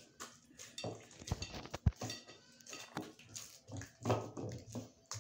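Hands kneading stiff flour dough in a glazed terracotta bowl: irregular squishing and rubbing as the dough is pressed and folded, with two dull thumps against the bowl a little under two seconds in.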